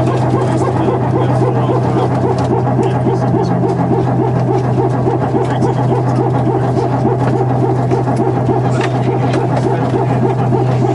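Airbus A319 hydraulic power transfer unit running after the last engine has been shut down: a steady, loud low hum with a rapid buzzing flutter above it, without a break.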